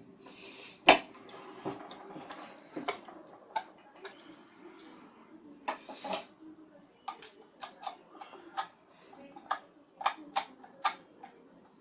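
Irregular sharp metallic clicks and clinks, about fifteen in all, the loudest about a second in: metal parts of a ceiling fan's motor housing being handled and fitted together during reassembly.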